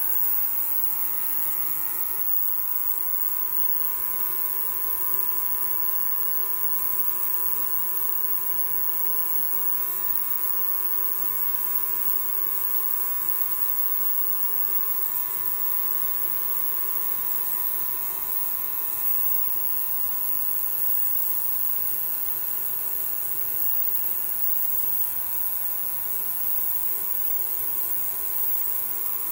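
Benchtop ultrasonic cleaner switching on and running, with two stainless-steel containers standing in its water bath: a steady buzzing hum of several tones over a strong high hiss, starting abruptly at the very beginning.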